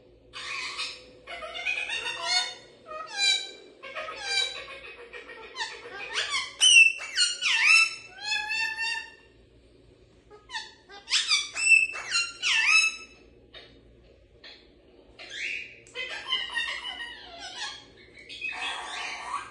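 A pair of green parrots chattering and squawking in bursts of short, high-pitched, falling calls, with brief pauses between bursts.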